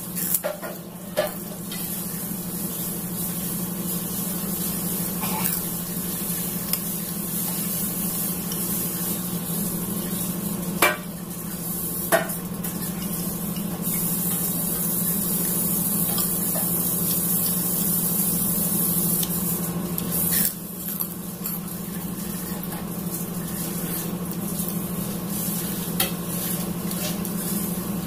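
Metal spoon stirring and scooping through thick curry in a ceramic bowl, with a few sharp clinks of the spoon against the bowl, over a steady background hiss and hum.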